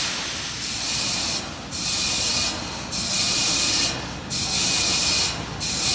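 Fuelled rocket on the launch pad venting propellant gas: a loud hiss that comes in pulses of about a second, with short breaks between them.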